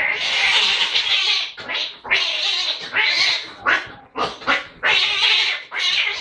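Two domestic cats fighting: a string of loud, harsh screeches and hisses, one burst after another, the first and longest lasting over a second.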